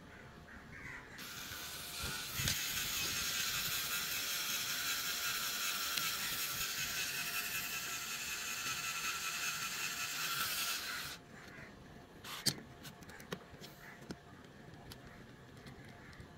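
Small electric motor driving a toy car's plastic gearbox, whirring steadily for about ten seconds, then cutting off abruptly. A few sharp clicks of the plastic parts being handled follow.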